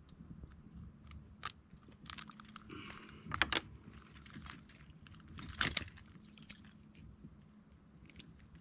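Scattered sharp clicks and light rattling of fishing gear being handled, with a few louder clicks standing out, over a faint low steady background noise.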